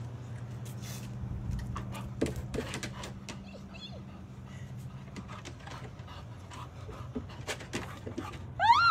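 A dog panting in short, irregular breaths after jumping, over a steady low hum.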